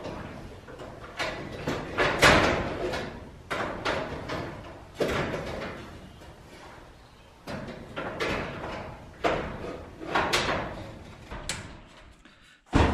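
Steel overhead-door track and its perforated hanger bracket clanking and scraping as they are handled and fitted into place: a run of sharp metal knocks and sliding scrapes, about one every second, the loudest a couple of seconds in.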